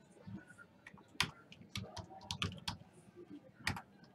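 Typing on a computer keyboard: irregular key clicks, with a couple of louder strokes about a second in and near the end.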